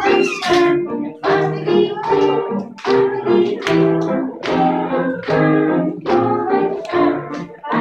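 Music for a children's New Year round dance: a song with singing over a steady beat.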